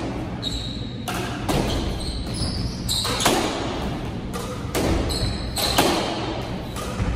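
Squash ball smacked back and forth by racquets and off the court walls during a doubles rally: a string of sharp, echoing knocks at irregular spacing, about one every half second, with brief high shoe squeaks on the wooden floor between them.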